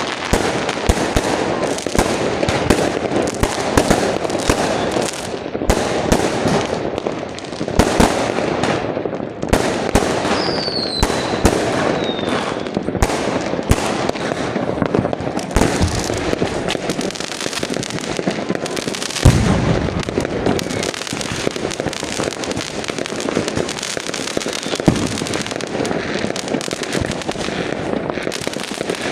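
Fireworks going off in a dense, continuous barrage of bangs and crackling. A falling whistle comes through about ten to twelve seconds in, and the loudest single boom lands about nineteen seconds in.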